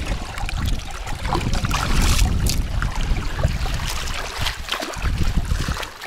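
Wind buffeting the microphone over small waves lapping against a stony marl lakeshore, with a few brief splashes.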